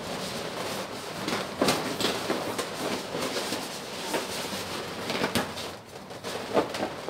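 Handling noise from a cluster of inflated metallic latex balloons: irregular rubbing and bumping as the balloons are shifted and pressed against each other.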